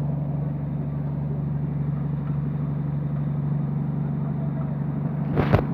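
An engine running steadily at an even low hum, with a short loud knock near the end.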